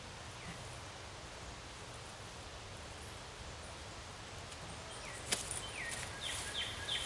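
Steady outdoor background rush. About five seconds in there is a sharp click and some rustling, followed by four or five short falling chirps, like a small bird calling.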